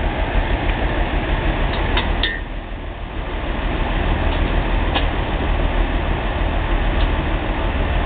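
Heavy engine running steadily, with a brief drop in level about two seconds in and a few light metallic clinks.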